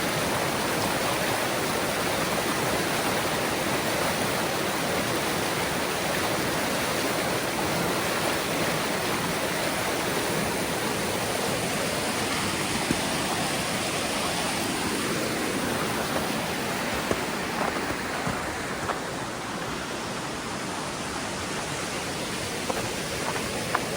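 Waterfall rushing steadily in a dense, even roar of falling water, a little softer about three-quarters of the way through, with a few small clicks near the end.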